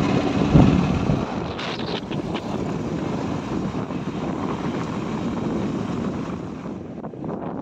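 Wind rushing over the microphone on a moving motorbike, with the engine running underneath; the loudest blast of wind comes about half a second in.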